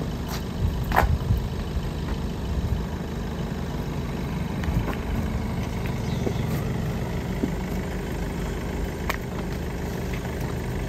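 A vehicle engine idling steadily, with a couple of brief faint clicks.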